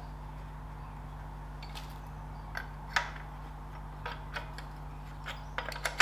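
Steel spanner clinking on the centre bolt of a Ferguson TED20 oil filter canister as it is fitted to the bolt head and turned to tighten it: a few sharp metal clicks, the loudest about three seconds in, and a quick run of clicks near the end, over a steady low hum.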